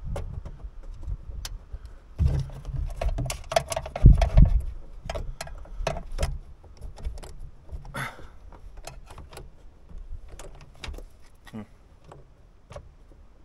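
Hands working the release cable and plastic trim inside a Scania truck's toolbox lid: scattered small clicks, taps and rattles. There are dull low knocks about two to four and a half seconds in, the loudest near four seconds.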